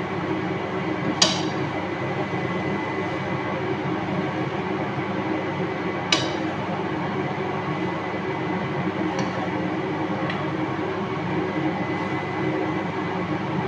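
Rice noodles being stir-fried and turned in a frying pan over a steady background noise, with two sharp clinks of the utensils against the pan, about a second in and about six seconds in, and a few fainter taps later.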